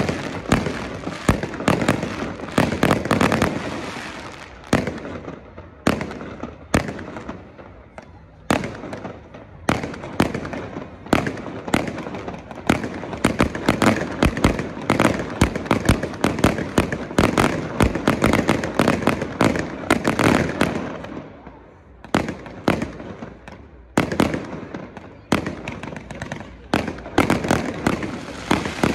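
Aerial fireworks display: a rapid, dense series of bangs and pops from shells bursting overhead, in salvos with two brief lulls.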